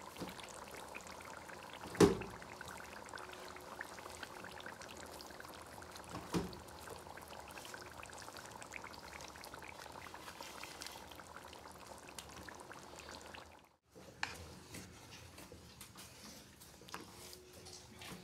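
Cream being added to chicken cooking in a karahi, over a steady sizzle from the pan. Two sharp knocks on the pan, about two and six seconds in, and the sound drops out for a moment near the end.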